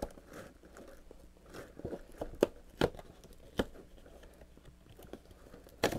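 Hands opening a paper envelope tucked into a cardboard pocket: soft paper rustling with a handful of sharp clicks and snaps, the loudest near the end.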